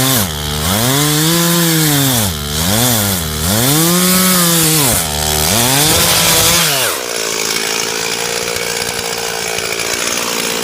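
Chainsaw cutting into a tree trunk during felling, its engine note sagging under load and climbing back several times. About seven seconds in it settles to a lower, steadier running note.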